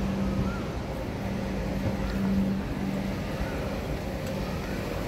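Hong Kong Light Rail Phase 5 light rail vehicle at a stop, with a steady electrical hum that breaks off now and then over low running rumble. A few faint short chirps sound higher up.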